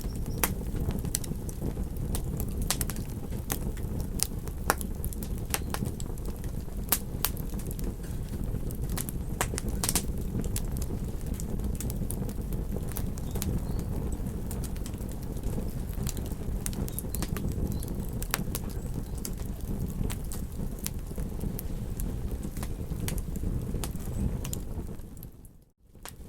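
Wood campfire crackling, with many sharp, irregular pops and snaps, over a steady low rush. The whole sound cuts out briefly near the end.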